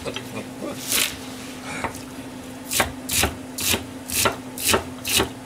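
Kitchen knife chopping turnip greens on a plastic cutting board: one stroke about a second in, then steady chopping at about two strokes a second from about three seconds in. A steady low hum runs underneath.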